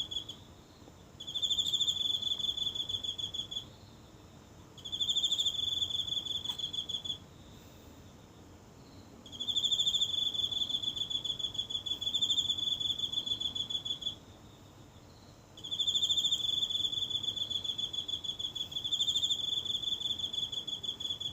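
A single insect singing in garden grass: a high-pitched, rapidly pulsed trill given in repeated bouts of a few seconds each, with short pauses between them.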